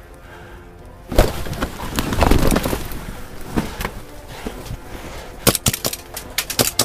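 Loud rustling and scraping of clothing against wood and plastic from about a second in, then a rapid string of sharp snapping shots from an airsoft pistol near the end.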